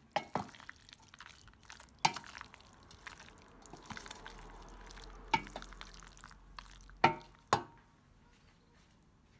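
A spoon mixing mayonnaise-dressed macaroni in a bowl: a soft, wet scraping and stirring, broken by several sharp knocks of the spoon against the bowl. The two loudest knocks come close together about seven seconds in.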